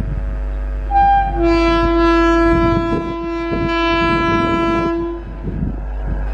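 Indian Railways locomotive air horn: a short toot about a second in, then a long steady blast of about four seconds, over the rumble of the passing train.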